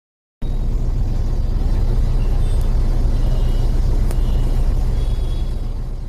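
Loud, steady low rumble from an intro sound effect. It starts abruptly out of silence about half a second in and begins to fade near the end, with one sharp click around four seconds.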